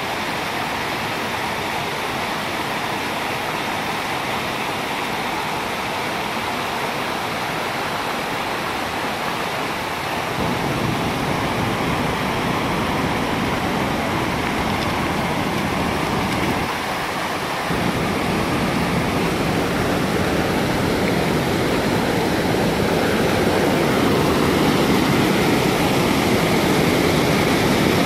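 Flood water pouring over the stepped concrete crest of a dam spillway: a steady rush of falling and churning water. It grows louder and deeper about ten seconds in, dips briefly a few seconds later, then swells a little near the end.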